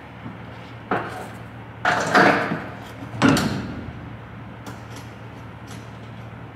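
Several loud clunks and bangs as diesel pump equipment is handled at a truck fuel island: one about a second in, two close together a second later, and one more about three seconds in, each ringing off briefly over a steady low hum.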